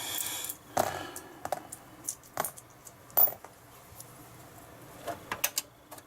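A short scraping rasp, then scattered light metal clicks and taps: a screwdriver working small screws out of a PS3 Slim's fan mounting, and the loose screws clinking on metal.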